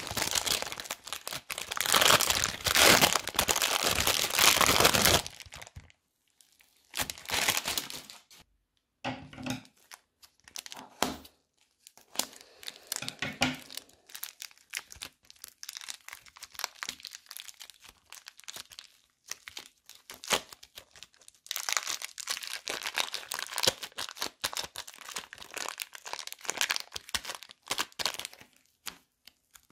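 Plastic bag crinkling loudly as it is handled for the first five seconds, then the crackling and popping of a foam-bead brick being pressed and squeezed together with soft white clay. The crackling comes in short bunches with pauses, then a longer dense stretch near the end.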